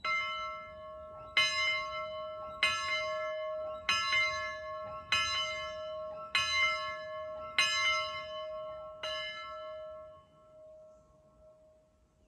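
Bell of Norfolk & Western Y6a 2-8-8-2 steam locomotive No. 2156 ringing: eight strokes a little over a second apart, each ringing on brightly. After the last stroke the ring dies away over about three seconds.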